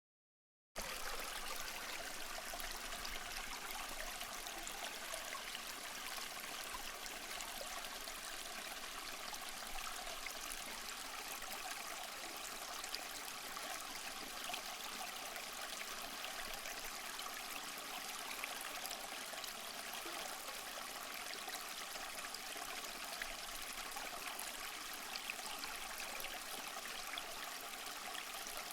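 Steady watery hiss with faint scattered crackles. It starts abruptly just under a second in and then holds even.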